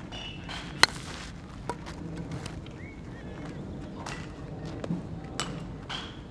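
A single sharp crack of a bat striking a baseball about a second in. Several lighter knocks and pops follow later, consistent with the ball being fielded and thrown.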